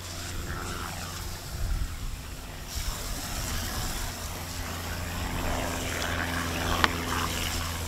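Steady low motor hum, with a single sharp click near the end.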